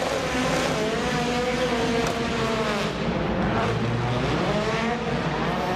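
Rally cars' engines revving hard, their pitch rising and falling repeatedly as the cars slide around the track, over a steady haze of tyre noise.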